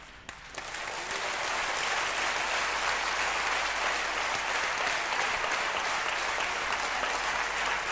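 A large auditorium audience applauding: many people clapping together, building up over the first second and then going on steadily.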